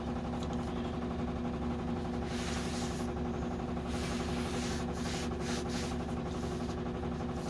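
Rubbing and scraping as a steel chainsaw bar is handled and worked free of a bench vise, in a few short bursts from about two seconds in, over a steady low hum.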